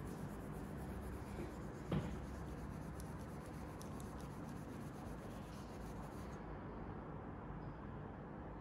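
A rod being rubbed briskly with a cloth to charge it with static, a soft dry scrubbing over a steady low hum. There is a single knock about two seconds in, and the rubbing stops after about six seconds.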